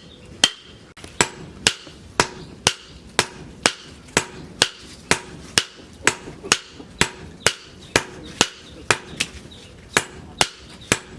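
Hammer blows on steel on an anvil, hand forging at a steady pace of about two strikes a second, each blow ringing briefly.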